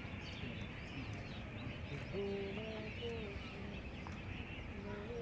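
Small birds chirping and twittering, with a steady outdoor hiss underneath. About two seconds in, and again near the end, a faint drawn-out call is held on two or three steady pitches.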